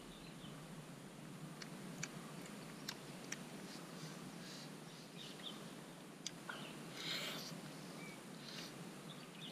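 Faint mouth sounds of a man eating: scattered sharp clicks and smacks while chewing, over the steady hiss of a flowing river. A short rustling burst comes about seven seconds in.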